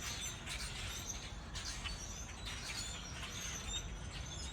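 A flock of birds chirping and calling, many short high calls overlapping, over a steady low background rumble.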